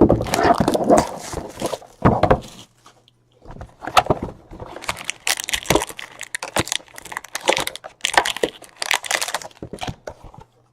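Trading cards and their cardboard and plastic packaging being handled: an irregular run of rustles, clicks and scrapes, with a short pause about three seconds in.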